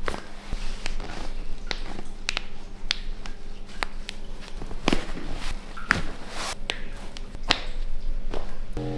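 A series of sharp, irregular clicks and taps, about one or two a second, over a faint steady hum.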